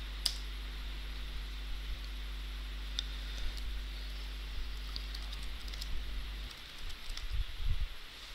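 Computer keyboard keys clicking sparsely as a command is typed, over a steady low hum that stops about six and a half seconds in. A few low thumps come near the end.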